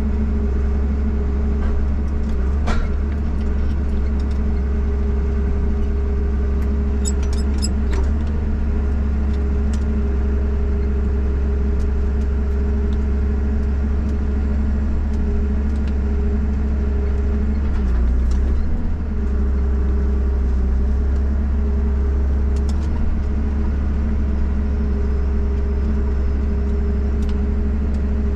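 Valmet 860 forwarder's diesel engine running steadily with a deep drone, heard from inside the cab while the hydraulic crane works. A few short clicks and knocks come through about three seconds and about eight seconds in.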